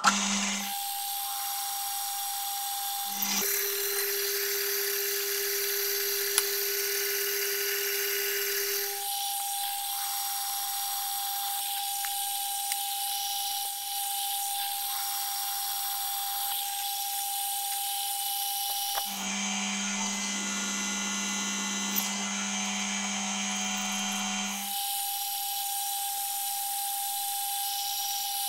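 Drilling machine boring holes in a steel wheel-hub flange, in time-lapse audio run at about eight times real speed. A steady machine whine over cutting hiss, its pitch jumping between a low, a middle and a high note several times, with a few sharp clicks.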